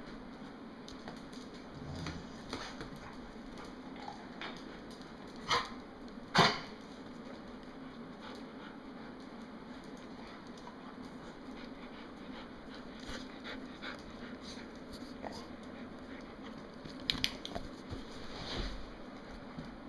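Dogs playing on a tile floor, with scattered clicks over a steady low hum. About five and a half and six and a half seconds in come two short sharp sounds, the second the loudest, and a burst of clicks comes near the end.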